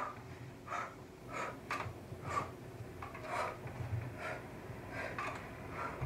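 A woman breathing hard in a string of short, sharp breaths, about two a second, from the exertion of dumbbell cleans and presses.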